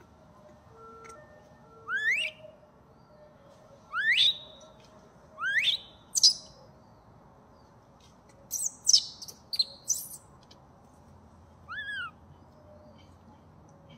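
Macaque cries: three rising, whistle-like calls about one and a half to two seconds apart, then a cluster of harsh screeches a little past the middle, and one short arched call near the end.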